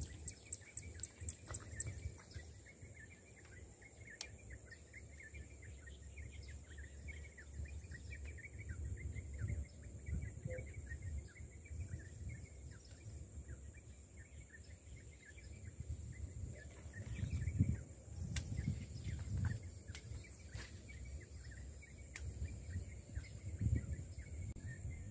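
Marsh wildlife at dusk: insects droning steadily at a high pitch, with many short chirps of small birds scattered over it. A low rumble swells twice, about two-thirds of the way through and near the end.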